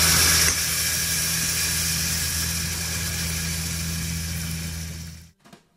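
Cooked moong dal poured into a hot tempering of oil, mustard seeds, curry leaves and dried red chilli, hissing loudly as it hits the pan, then sizzling steadily over a steady low hum. The sound cuts off abruptly near the end.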